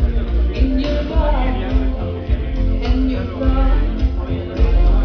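Loud recorded music with singing and heavy bass, played over a PA sound system.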